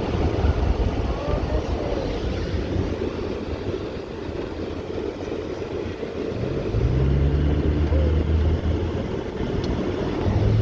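Cabin sound of a Mercedes-Benz W123 300D's five-cylinder turbodiesel on the move: steady road and tyre rumble, then about six and a half seconds in the engine's drone rises and holds steady for a few seconds as the car pulls, before easing off near the end.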